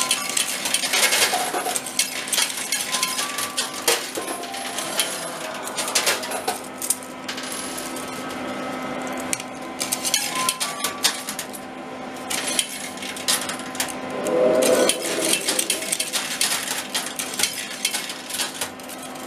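Metal coins clinking and dropping onto the trays of an arcade coin pusher machine as it is played, in a steady run of sharp clinks.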